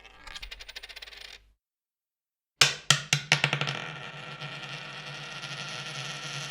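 A single coin dropped on a hard surface. First the tail of one drop, a rattle whose ticks come faster and faster until it settles and stops. After about a second of quiet comes another drop, with a few sharp bounces and then a long, steady ringing rattle.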